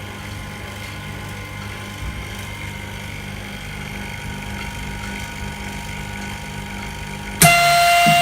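Vacuum laminating machine for phone screens, its vacuum pump and compressor running with a steady hum. Near the end a loud beep sounds for under a second, together with a sudden rush of hissing air.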